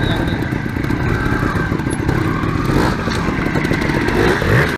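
Trials motorcycle engine running in fast pulses, with a rising rev near the end.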